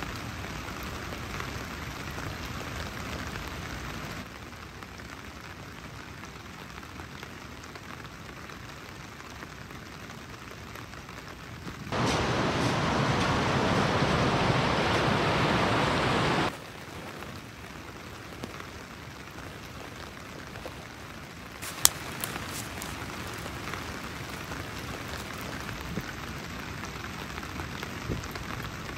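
Rain falling steadily, in short cuts that shift its level. A louder stretch of rushing river water lasts about four seconds in the middle, and a single sharp click sounds about two-thirds of the way through.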